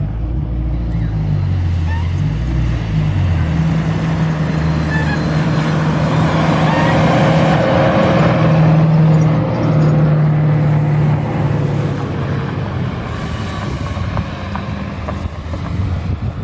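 Motor vehicle engine running with a steady low hum that shifts in pitch during the first few seconds, then swells to its loudest near the middle and eases off a little.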